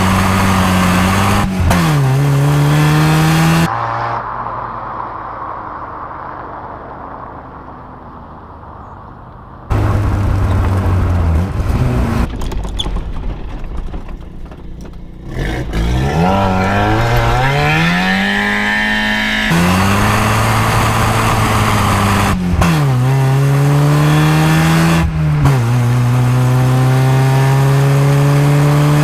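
Mazda Miata four-cylinder engine accelerating hard through the gears in a series of cut-together flyby clips: the engine note climbs, then drops sharply at each upshift, about 2 s in and twice more near the end. In the stretch after the first cut it fades away as the car drives off.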